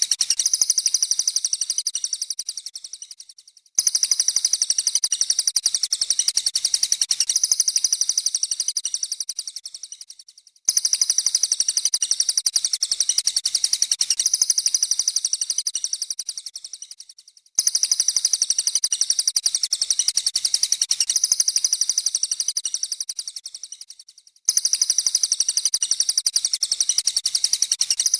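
A recorded track of several small songbirds chirping and singing together, dense and high-pitched, played on a loop: the same passage starts abruptly about every seven seconds and fades out before it begins again.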